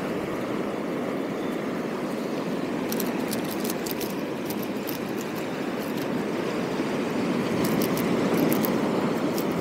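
Sea surf washing over a rocky reef shelf: a steady rushing of water that swells a little near the end, with a few faint light clicks here and there.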